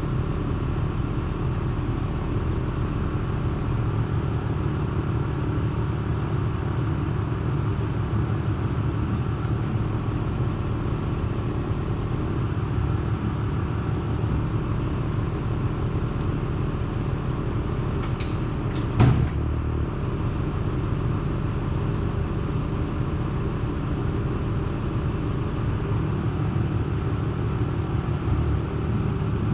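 A steady low mechanical drone that does not change, with one sharp clank about two-thirds of the way through.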